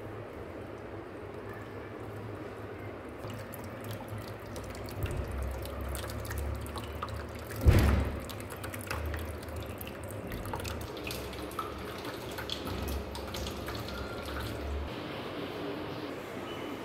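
Water dripping and splashing in a steel sink as a cat wades in a plastic basin of water, with many small drip ticks and one louder knock near the middle.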